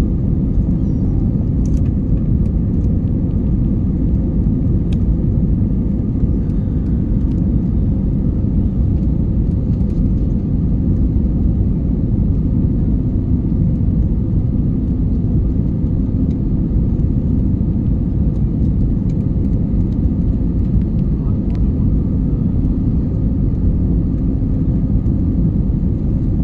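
Airliner cabin noise heard inside the passenger cabin: a loud, steady low rumble of the jet engines and airflow that does not change.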